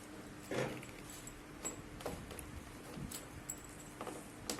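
Scattered light clicks and knocks of plastic handpiece connectors and tubes being handled and fitted to a hydrafacial beauty machine, over a faint steady hum.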